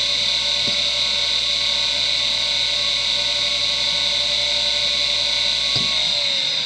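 Seagate ST9145AG 2.5-inch IDE hard drive spinning at full speed (3449 rpm) with a steady high whine, its heads clicking once about 0.7 s in. Near the end another click comes and the whine starts falling in pitch as the drive spins down.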